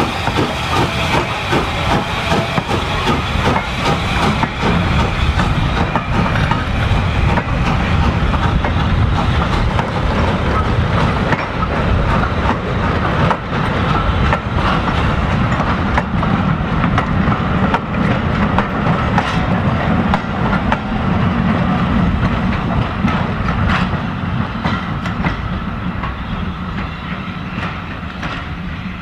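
A steam-hauled goods train passing: LSWR M7 class 0-4-4 tank engine no.30053 going by, followed by its string of wagons, their wheels clattering over the rail joints. The sound eases off near the end as the last wagons and brake van draw away.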